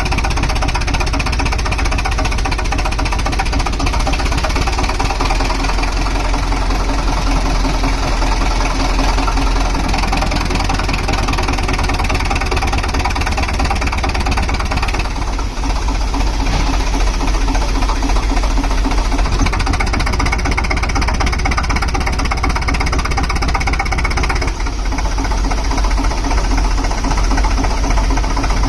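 Compressor engine running steadily under power, with a fast, even knocking beat.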